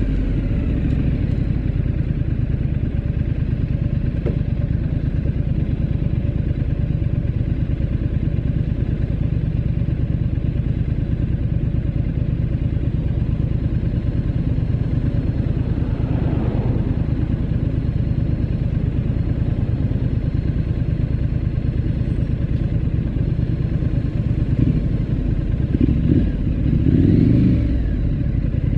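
Triumph Scrambler 900's parallel-twin engine running at low, steady revs as the motorcycle rolls slowly in traffic, with a few short rises in revs near the end.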